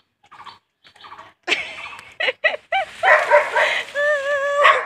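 Short, high animal cries that bend sharply in pitch, followed near the end by a held, wavering whine.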